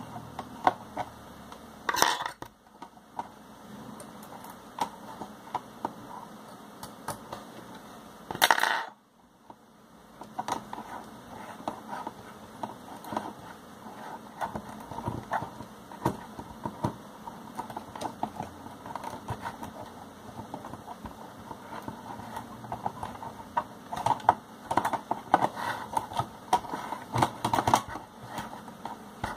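Small clicks, taps and rattles of an opened 3-inch floppy disk drive's metal chassis, circuit board and connectors being handled by hand, with two louder bumps about two and eight and a half seconds in. The clicking gets busier near the end.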